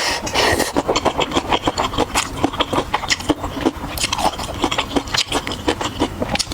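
Close-miked eating: food being chewed, with rapid irregular clicks and crackles from the mouth.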